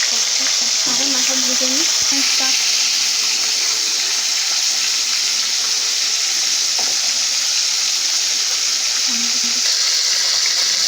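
Pieces of singh fish (stinging catfish) frying in hot oil in a pan: a steady, loud sizzle.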